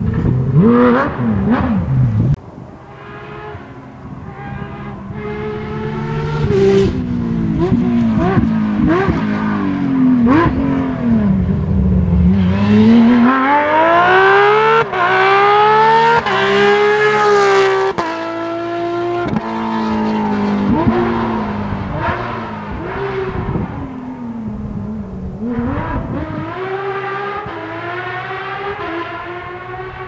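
Porsche 997 GT3 rally cars' flat-six engines revving hard, their pitch climbing and dropping repeatedly as they shift through the gears. The loudest pass comes about halfway through, as one car accelerates up close and its engine note swings up and then falls away.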